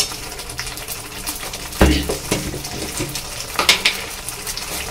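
Spice paste with yogurt sizzling steadily in oil in a metal kadai as it is fried down (bhuna), with a few knocks of a steel spatula against the pan, the loudest about two seconds in and a sharp click near the end.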